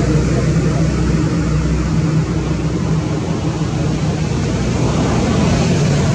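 A motor running steadily: a continuous low engine hum with a wash of hiss over it.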